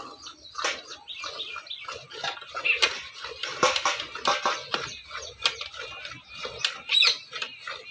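Buffalo being milked by hand: jets of milk squirting into a pail in irregular strokes, about two a second, with a few high chirps over them.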